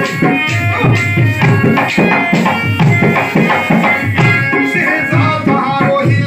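Instrumental folk music: a harmonium holds sustained chords over a steady hand-drum beat of about three strokes a second.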